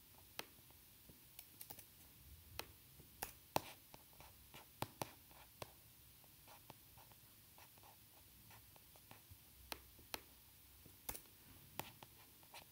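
Scattered faint, irregular clicks from someone working a computer, over quiet room tone.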